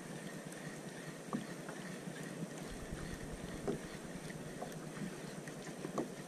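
Quiet water sounds around a Seaflo fishing kayak's hull, with a few faint, scattered taps of gear against the boat.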